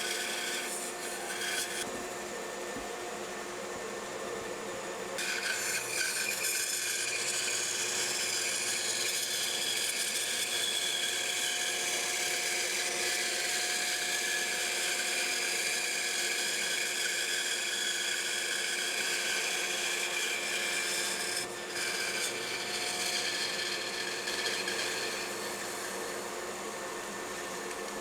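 Bandsaw running with its blade cutting through a wood block, a steady machine hum under a rasping cut. The cutting gets louder about five seconds in and eases off near the end.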